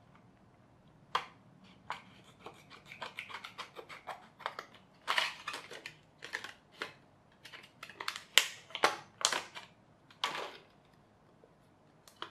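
Scissors snipping strips from a thin clear plastic blister pack: a run of irregular sharp snips and crinkling crackles that starts about a second in and stops shortly before the end.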